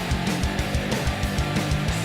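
Background rock music with distorted electric guitar and a fast, steady drum beat.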